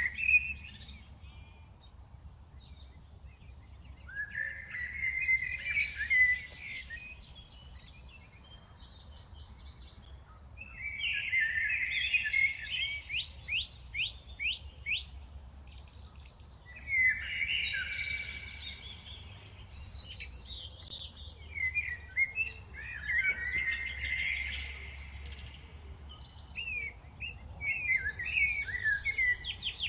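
A mix of songbirds chirping and singing in bursts of quick notes and trills every few seconds, over a faint low rumble.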